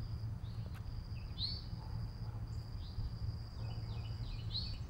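An insect's steady high-pitched trill with a few short bird chirps, over a low steady rumble.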